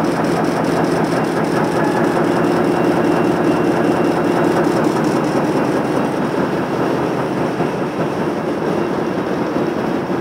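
Heidelberg Speedmaster XL 106 six-colour sheetfed offset press with coating unit running in non-stop production at about 18,000 sheets an hour: a loud, steady, fast and even mechanical clatter over a constant hum.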